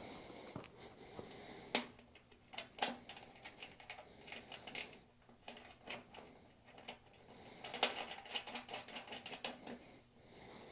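Irregular light metallic clicks and clinks of hand tools working on steel, from threading a tap into a bolt hole in a steel workbench or fitting a bench vise to it. The sharpest clicks come at about two and three seconds in and again near eight seconds.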